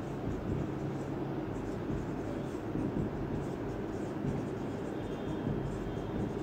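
Marker pen writing on a whiteboard: short faint strokes and squeaks as a word is written, over a steady low background hum.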